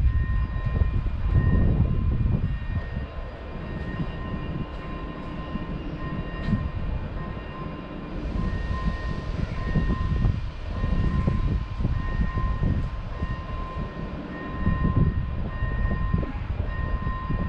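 ČD class 680 Pendolino electric train standing at the platform, giving off a steady high-pitched whine of two tones over an uneven low rumble; a higher hiss joins about eight seconds in.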